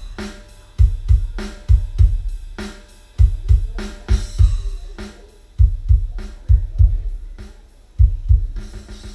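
Drum-heavy music played back through a hi-fi system with a Yamaha NS-SW700 subwoofer, the deep bass-drum thumps standing out loud, often in pairs, over snare, hi-hat and cymbals.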